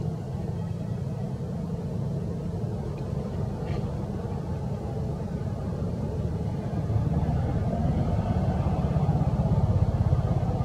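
Steady low rumble that gets a little louder about seven seconds in.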